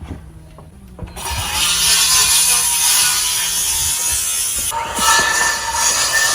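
Loud mechanical noise in two long bursts with a short break about four and a half seconds in; the second burst carries a steady whine.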